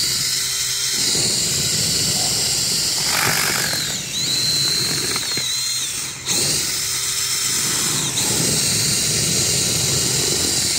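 Power drill spinning a paddle mixer through a bucket of shelled corn coated in syrup and brown sugar, its motor whining steadily over the grinding churn of the kernels. The whine dips briefly about four seconds in and again about six seconds in.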